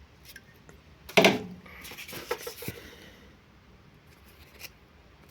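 Rustling and scratching of a sheet of self-adhesive foam being handled, with a sharp scrape about a second in and a short patch of scratchy rustling after it.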